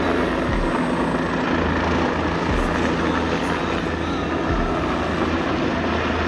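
Helicopter in flight just after take-off: a steady drone of rotor and turbine engine.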